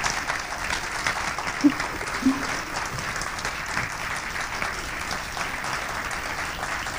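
Dinner audience applauding steadily, a dense patter of many hands clapping, with two short calls from the crowd about two seconds in.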